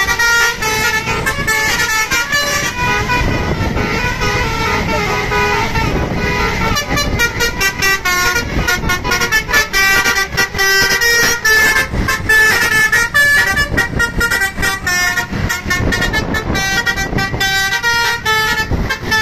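Bus 'basuri' telolet horns playing quick musical note sequences, loud and continuous, over the low noise of bus engines.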